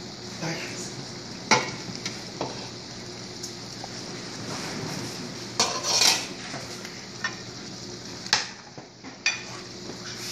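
Metal utensils clinking and scraping against a pan and plate while food is served, over a steady sizzle from the pan. The sharpest clinks come about a second and a half in and around six seconds in.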